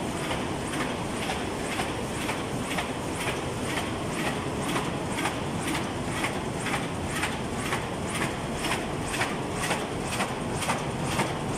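MY-1080E automatic die-cutting and creasing machine running, a steady mechanical din with an even clack about twice a second as it cycles through sheets of board.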